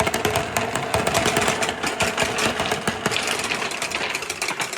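Many marbles rolling and clattering along a handmade marble run's wooden and orange circular track. Dense, rapid clicking runs over a steady rolling hum.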